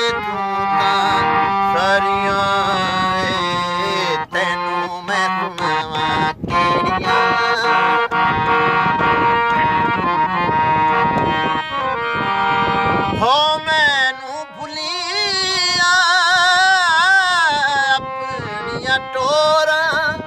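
Harmonium playing a melodic interlude in raag Sindhra, its reeds sounding held notes and quick runs. About two-thirds of the way through, a man's voice sings one long held phrase with wavering pitch over the harmonium for several seconds, then the harmonium continues alone.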